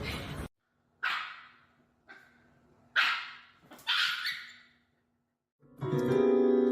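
A dog barking: four or five short, sharp barks about a second apart. Piano music starts near the end.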